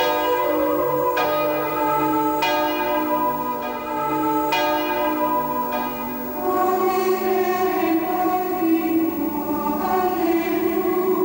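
Church bells ringing, with a fresh strike every second or two, then a choir comes in singing about two-thirds of the way through.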